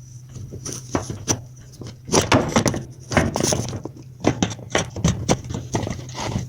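Objects being handled and set down: a run of irregular knocks, clicks and rattles over a steady low hum.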